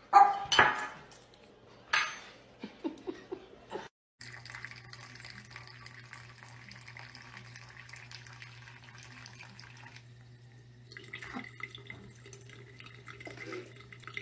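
A dog barks three times in the first two seconds, followed by a run of smaller sounds. Then a steady low hum with a faint hiss of water at a bathroom sink faucet, and a few soft knocks near the end.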